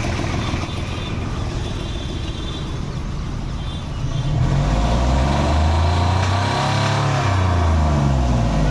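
Hyundai Xcent engine running unevenly at idle, then revved up once about halfway through and let back down. The engine is misfiring with a disturbed sound from the inlet manifold, which the mechanic traces to a carbon-clogged, stuck EGR valve.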